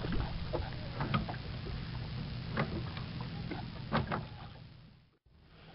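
Sculling oar working in a prototype automatic sculling mount at the stern of a small wooden boat, knocking once about every second and a half as it swings, with water splashing at the blade. The sound fades out near the end.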